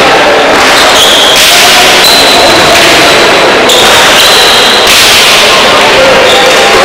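Pelota ball smacking against the frontón wall and floor during a rally, sharp cracks echoing in the covered court.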